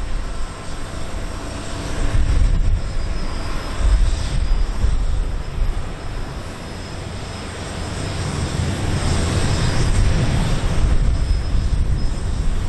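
Jet engines of taxiing airliners, an Airbus A330-343 among them, running at low taxi power: a continuous rush over a wavering low rumble that dips briefly and then swells louder from about eight seconds in.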